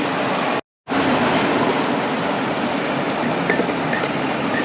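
Steady rushing of a river mixed with onions frying in an aluminium pressure cooker on a portable gas stove. The sound drops out briefly about half a second in, and near the end a steel spatula clicks against the pot as the onions are stirred.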